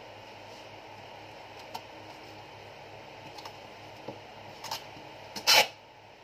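Packing tape pulled off its roll in one short, loud rip about five and a half seconds in, while a cardboard box is being sealed. Before it come a few light taps and rustles of hands smoothing the tape on the box, over a steady low hum.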